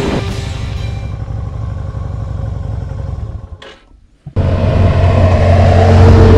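Yamaha Virago 250's twin-cylinder V engine running on the move. About three and a half seconds in, the sound drops out briefly, then a louder steady low hum starts.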